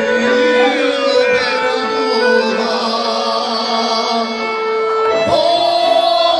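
Man singing into a microphone over a PA, with live accordion accompaniment; the voice holds long, wavering notes.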